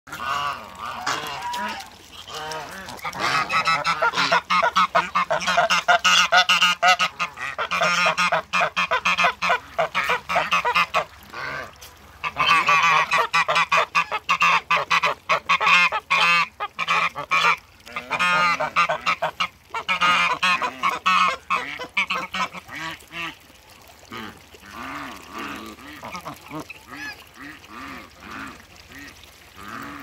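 Domestic geese, Toulouse and hybrid, honking loudly in rapid, repeated calls. The calls come in three long bouts and turn quieter and sparser near the end.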